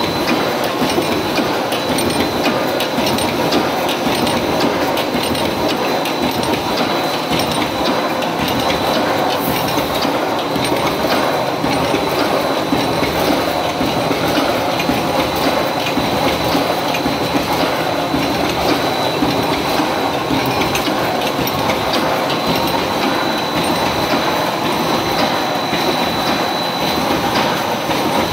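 DP-DNW-1 electric welded wire mesh machine running, its welding and mesh-feeding mechanism making a steady, rapid mechanical clatter with a thin steady high whine over it.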